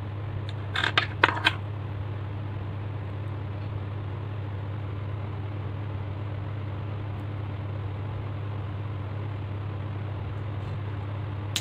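Steady low hum in the room, with a few sharp clicks about a second in as small metal magnet discs and plastic LED light housings are handled on a tabletop.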